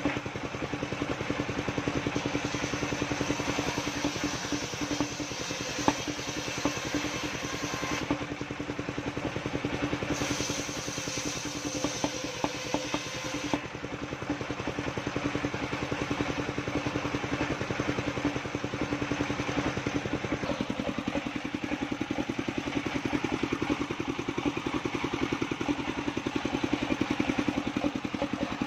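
Engine of a truck-mounted circular sawmill running steadily with a fast, even beat while its circular saw blade rips wooden planks fed through it, with a few sharp knocks of timber.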